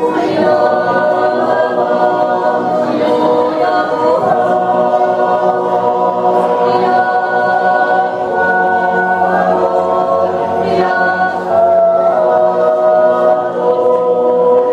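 Swiss yodel choir of men and women singing a cappella in parts, holding long chords that shift together every second or two.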